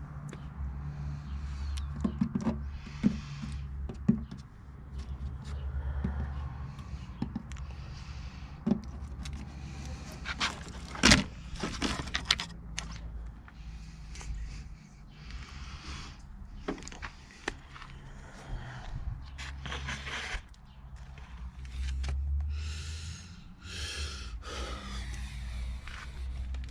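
Scattered knocks, clicks and scraping from hand work in a garage, over a steady low hum, with one loud sharp knock about eleven seconds in.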